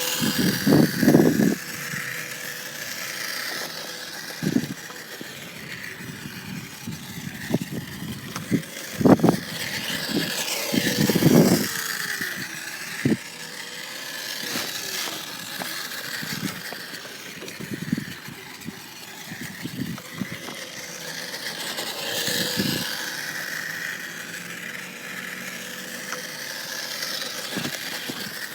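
Radio-controlled truck driving over rough ground: its motor runs with a thin steady whine, broken by irregular knocks and rattles as it bumps and jolts, the loudest about 9 and 11 seconds in.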